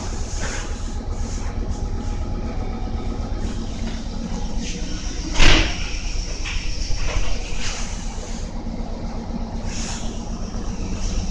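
Steady low rumble and hum inside the car of a Meitetsu 3500-series electric train, with a single loud knock about five and a half seconds in.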